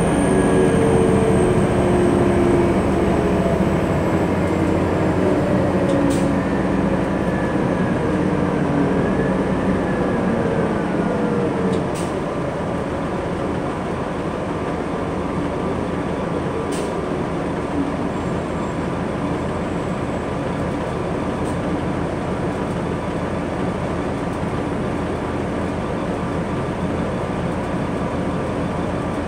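Cabin sound of a 2003 New Flyer D60LF articulated diesel bus on the move: its Detroit Diesel Series 50 inline-four and Allison B500R automatic transmission running under a steady road rumble. A whine slowly falls in pitch over the first ten seconds or so, then the rumble settles a little quieter and steady.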